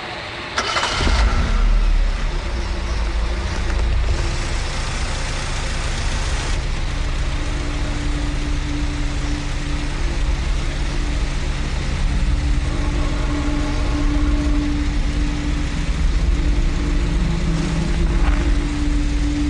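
An engine starts with a short burst about a second in, then runs steadily.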